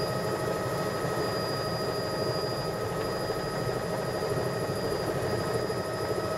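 Helicopter engine and rotor noise heard from inside the cabin in steady, level flight: a constant drone with a few thin steady whines above it.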